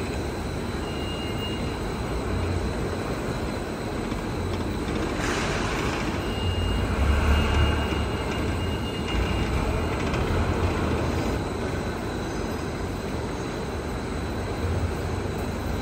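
LYAN-1850 solidboard laminating machine running: a steady mechanical rumble from its rollers and conveyor, with a faint steady high whine and a short hiss about five seconds in.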